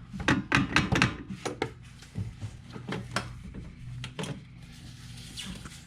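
Parts and hand tools knocking and clunking while an ATV starter motor is worked into its tight-fitting mount: a quick run of knocks in the first second and a half, then a few scattered taps, over a low steady hum.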